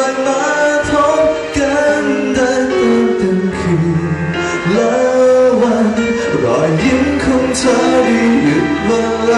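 A man singing live into a handheld microphone over band accompaniment, holding long notes.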